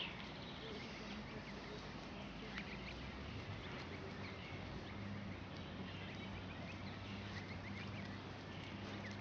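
Canada goose goslings peeping, scattered short, faint high chirps, over a steady low hum that comes up about a third of the way in.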